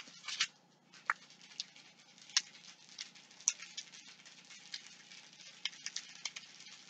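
Aluminium foil being rolled into a ball between the palms: faint, continuous crinkling with scattered sharper crackles.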